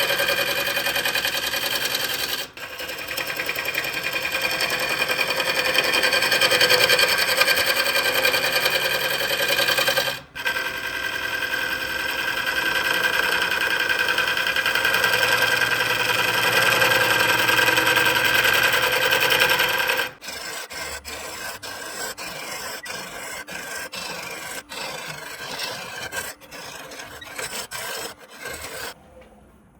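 Wood spinning on a lathe with a tool rubbing steadily against it. It runs evenly for about twenty seconds with two brief breaks, then turns quieter and choppy with many short interruptions, and stops near the end.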